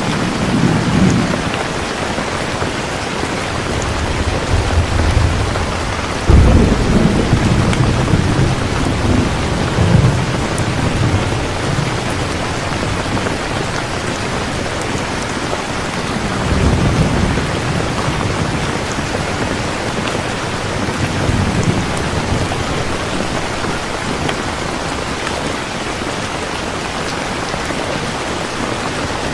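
Heavy steady rain with rolls of thunder. A sharp, loud thunderclap comes about six seconds in and rumbles on for several seconds, with lighter low rumbles before and after it.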